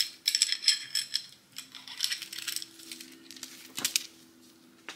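Loose small steel parts jingling and clinking in several short bursts over the first two seconds, with one sharp click near four seconds in.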